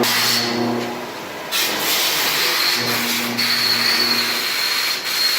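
CNC lathe machining noise: a steady hiss with a thin high whine over it. It drops back about a second in and comes back sharply half a second later. A low hum comes and goes twice.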